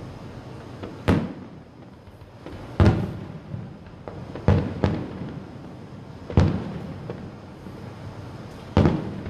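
Aerial firework shells bursting: six sharp bangs in about nine seconds, two of them in quick succession, each trailing off in an echoing tail.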